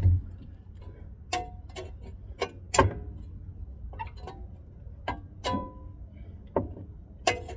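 Sharp metallic clinks, about ten at uneven spacing, each ringing briefly: a hand wrench knocking against the steering-linkage metal while turning a threaded part off.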